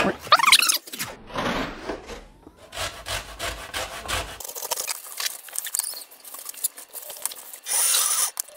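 Lime rubbed against a metal box grater in quick, repeated rasping strokes, zesting the peel. A short, louder rustle comes near the end.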